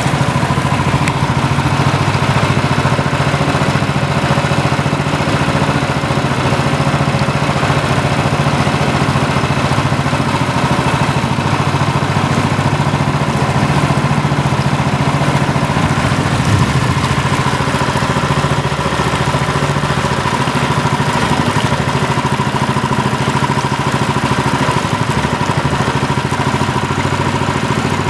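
A motor running steadily at an unchanging pitch, with a low hum and a higher whine.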